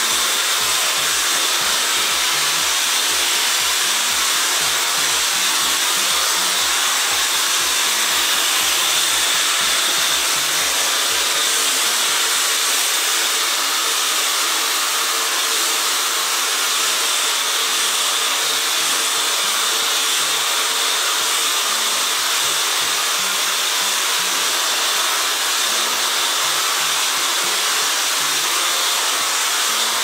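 Dyson Supersonic hair dryer blowing steadily, a loud even rush of air that starts abruptly. Background music with a steady beat plays faintly underneath.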